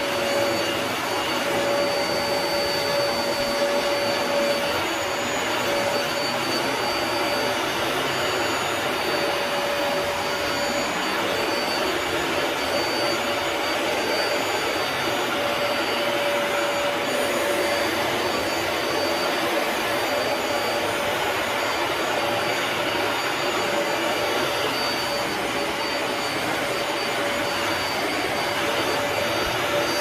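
Upright carpet shampooer running as it is pushed over shag carpet: an even motor and suction rush with a steady high whine.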